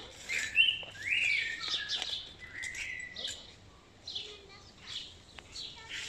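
Wild songbirds singing in the trees, a busy overlapping mix of quick high chirps and short trills.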